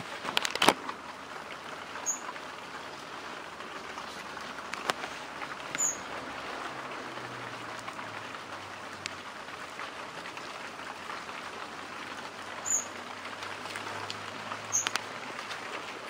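Rain falling on a grapevine and a concrete terrace: a steady patter with scattered individual drops tapping, a few of them louder.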